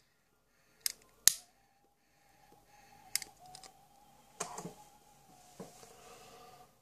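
A fluid lighter is struck, giving two sharp clicks close together, then soft puffs and draws on a tobacco pipe as the flame is held to the bowl. The pipe keeps going out, which the smoker blames on the lighter.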